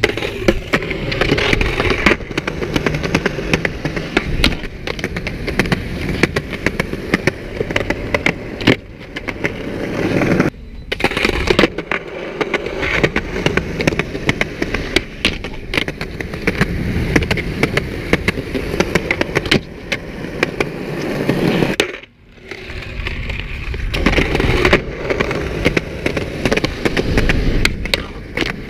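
Skateboard wheels rolling over a concrete skatepark surface, with frequent sharp clacks of the board popping and landing. The sound drops out briefly twice between runs.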